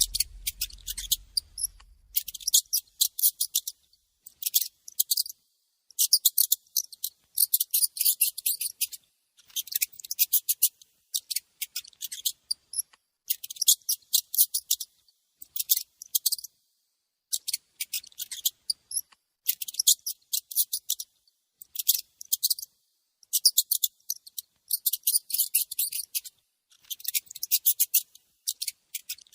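Mouse squeaking: repeated bursts of rapid, high-pitched chirping squeaks, each burst a second or two long with short pauses between.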